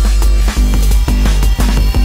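Electronic dance music with a heavy bass line and a steady drum beat.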